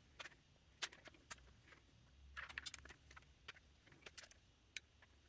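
Near silence with a few faint, scattered clicks and taps, a small cluster of them a little before the middle. They are the sounds of a small bolt-release lever being worked into an airsoft gun's polymer receiver.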